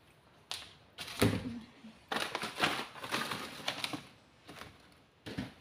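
Plastic snack packets and containers being handled in a cupboard: rustling and crinkling with several sharp clicks, and one louder knock about a second in.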